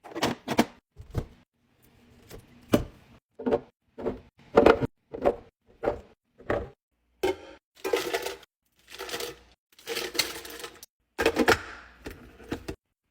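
Plastic containers and packaging being handled while restocking a fridge: a quick run of sharp clacks and knocks, then several longer rustling stretches, stopping suddenly near the end.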